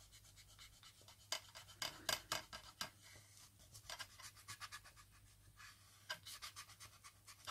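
Faint, irregular scratching strokes of a pencil worked back and forth on decoupage paper.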